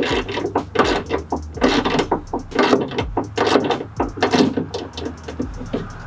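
Ratchet wrench clicking in quick, repeated strokes as it snugs down the bolt holding the inner door handle to the reinforcement plate on a Ford F-Series truck door.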